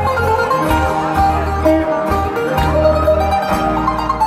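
Live band playing amplified music, a plucked-string melody over a steady bass line.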